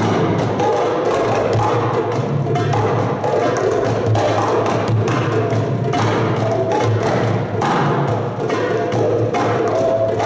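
Gamelan ensemble playing: bronze kettle gongs and a two-headed hand drum struck in a quick, dense, unbroken run of strokes over a steady low hum.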